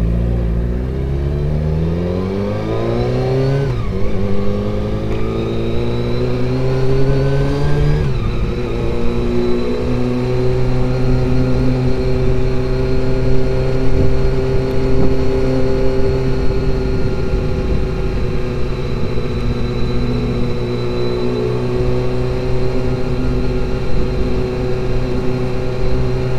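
Honda CBR400RR (NC23) inline-four engine pulling away, its revs rising through two gears with a drop at each change, about four and eight seconds in, then running steadily at cruising speed.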